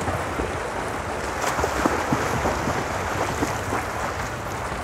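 Swimmers splashing in a pool: a steady wash of water noise from arm strokes and kicks, with a few sharper splashes.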